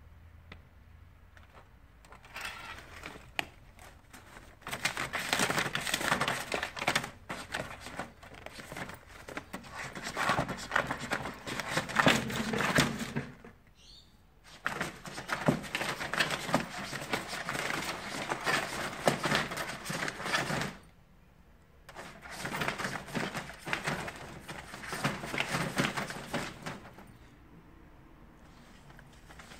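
Sheets of printer paper rustling and crinkling as a Maine Coon cat pushes its head and paws into them, in three long spells with short quiet gaps between.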